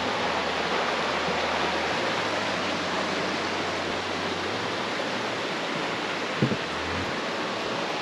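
Rocky forest creek rushing steadily, an even water noise, with one soft knock about six and a half seconds in.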